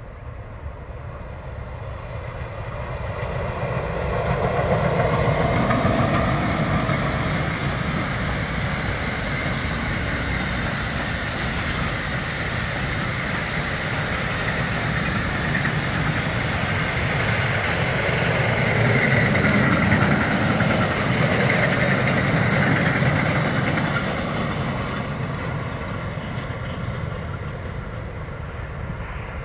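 Empty car-transporter freight train hauled by a DB class 111 electric locomotive passing on the tracks, its wheels rumbling and clattering over the rails. The noise swells as the locomotive goes by about five seconds in, stays up while the long string of double-deck wagons rolls past, and fades over the last few seconds.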